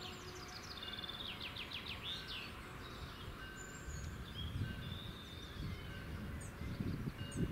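Songbird singing a fast trill of repeated downward-sweeping notes, with scattered short chirps over low outdoor background rumble. The last of a train whistle dies away right at the start.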